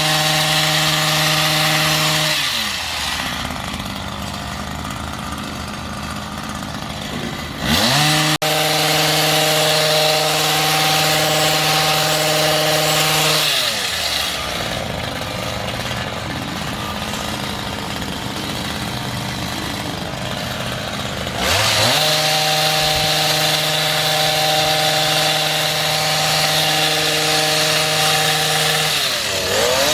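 Small engine of a gas-powered yard tool revved to full throttle, dropping back to a lower idle and revving up again several times, holding each speed for several seconds.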